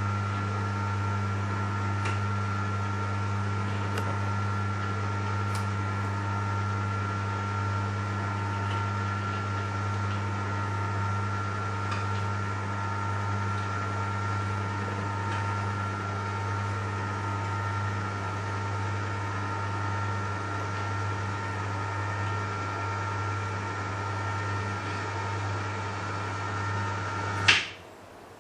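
Electric motor of a motorised pleated orangery roof blind running with a steady hum as the fabric draws across the roof lantern. It cuts off suddenly with a click near the end as the blind reaches full extension.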